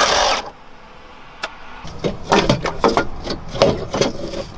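A cordless power tool runs on a bolt under the car and stops about half a second in. After a single click, an irregular string of knocks and clanks follows as metal parts and tools are handled.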